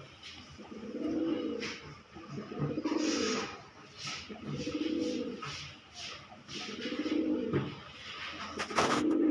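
Domestic pigeon cooing: five low coos, about two seconds apart. A brief sharp noise comes near the end.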